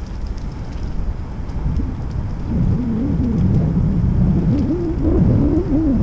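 Wind buffeting the microphone of a camera on a moving bicycle, a steady low rumble. About two and a half seconds in, a wavering pitched sound rises over it and grows louder toward the end.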